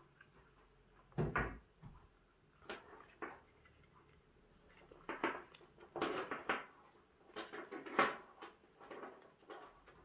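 Handling noises of lamp parts on a tabletop: a lamp socket and round lamp base being knocked, turned over and shifted while the cable is pulled through. A low thump comes about a second in, then scattered light knocks and rustles, the sharpest near the end.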